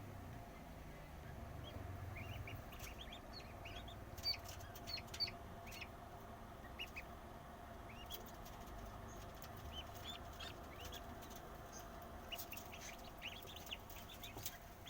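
Newly hatched poultry chicks peeping inside an egg incubator: short, high, scattered peeps, busiest about four seconds in and again near the end, over a steady faint hum.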